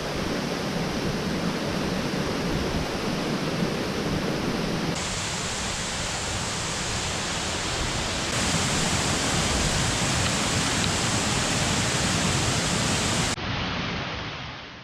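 Steady roar of the Scale Force waterfall, a 170-foot fall swollen by recent downpour. The rushing water shifts abruptly about five, eight and thirteen seconds in, then fades out at the end.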